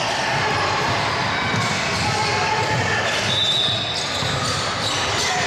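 Basketball being dribbled on a gym floor during a game, with indistinct voices of players and spectators in an echoing hall. A brief high squeak comes about three and a half seconds in.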